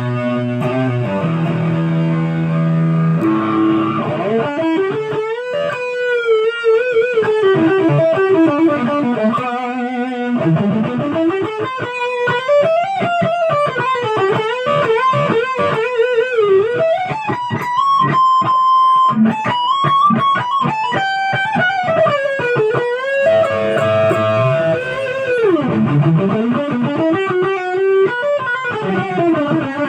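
Les Paul electric guitar playing a melodic lead. Chords for the first few seconds give way to fast single-note runs with bent, wavering notes and a long held high note about two-thirds of the way in.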